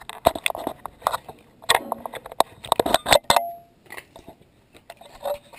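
Handling noise from a GoPro camera and its gun mount being taken off and turned around by hand: a quick run of plastic clicks, knocks and rubbing against the camera's microphone for about three and a half seconds, then quieter with a few more clicks near the end.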